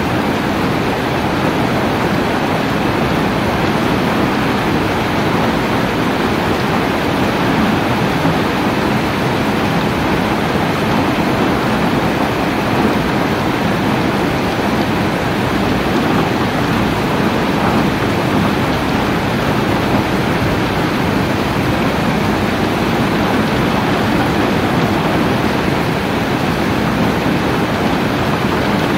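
Steady rain falling, a loud, even hiss that never breaks or changes.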